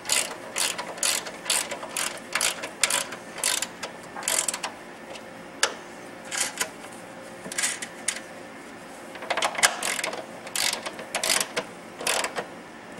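Ratchet wrench clicking in quick runs, one run per back-swing at about two a second, as the upper strut mount nuts are run down. It pauses for a few seconds midway, then resumes.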